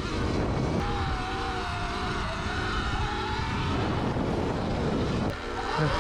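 Sur-Ron electric dirt bike being ridden, with wind rushing over the microphone and a steady low rumble, and a faint wavering whine from about one second in to near four seconds.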